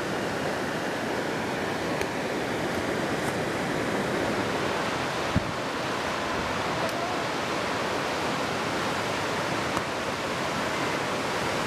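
Ocean surf breaking and washing up a sandy beach, a steady rushing noise, with a few faint clicks and one sharper knock about halfway through.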